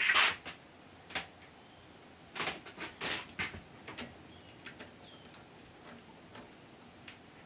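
Light metallic clicks and brief scrapes at irregular intervals, loudest near the start and again two to three seconds in, as a small grub screw is handled and turned into a lathe's spindle pulley with a T-handle hex key.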